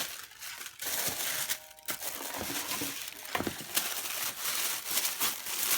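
Packaging paper crinkling and rustling as it is handled and wrapped around a pair of sneakers, with irregular sharp crackles.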